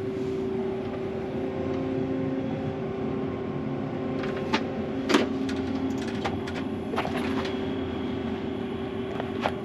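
Combine harvester running as it drives, heard from inside the cab: a steady engine hum with a couple of steady tones, and a few sharp clicks and rattles scattered through it.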